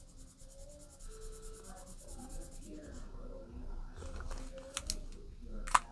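Pink felt-tip marker scribbling rapidly on a paper sheet, colouring in a heart shape with quick back-and-forth strokes, then slower rubbing strokes, with a few sharp clicks near the end.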